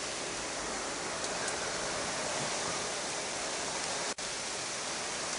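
Hail falling steadily during a thunderstorm, an even hiss of ice pellets with some rain. The sound cuts out for an instant about four seconds in.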